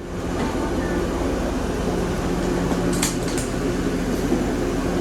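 Steady mechanical drone of air-handling machinery with a low hum, and a brief hiss about three seconds in.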